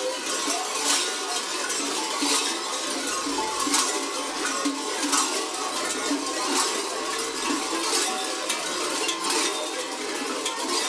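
Many large klopotarci, the sheep bells worn by the masked Džolomari men, clanging together in a dense, very noisy racket. Heavier clangs swell about every second and a half.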